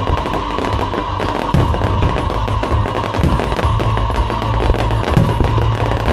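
Aerial fireworks bursting and crackling in rapid, dense succession, with low booms, over loud accompanying show music.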